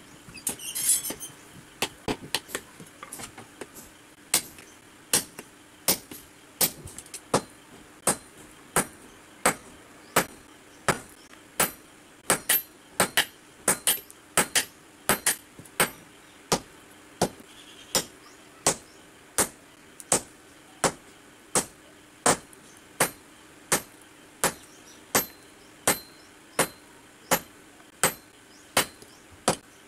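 Long-handled hammer striking red-hot iron on an anvil while a basula (carpenter's adze) is forged. The blows come unevenly at first, then settle from about four seconds in into a steady beat of roughly three strikes every two seconds.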